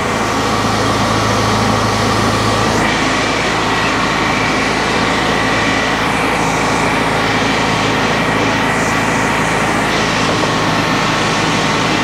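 Sawmill board edger running, its engine droning steadily while the saw blades rip a board lengthwise into two narrower boards. About three seconds in, the hum shifts and a higher cutting noise is added as the blades bite into the wood.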